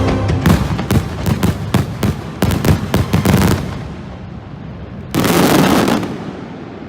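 Fireworks going off: a sharp bang at the start, then a quick run of bangs and crackles for about three and a half seconds, and a denser burst lasting about a second near the end.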